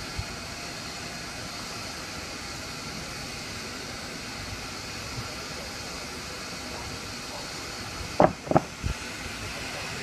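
Steady hiss from a portable steam engine under steam, with three loud knocks in quick succession about eight seconds in.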